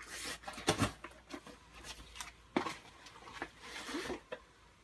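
Cardboard parcel box being torn open and handled: rustling and scraping of cardboard with a few sharp snaps, the loudest about a second in.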